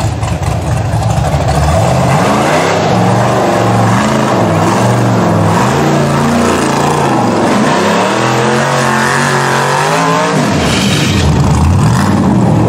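Rock bouncer buggy's engine revving up and down again and again as it claws up a steep rocky hill, the pitch rising and falling every second or so. A rougher, lower engine noise before the revving starts and after it drops away about ten seconds in.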